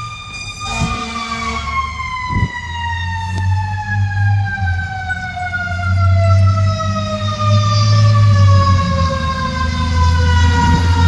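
Fire engine siren winding slowly and steadily down in pitch, over the diesel engine rumble of the fire truck, which grows louder as the apparatus comes closer.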